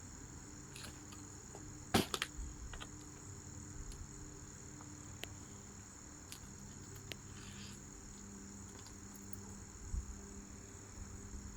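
Light clicks and knocks of tools working the handlebar stem bolts of an e-bike as it is loosened, with one sharp knock about two seconds in. Insects chirr steadily and high-pitched in the background.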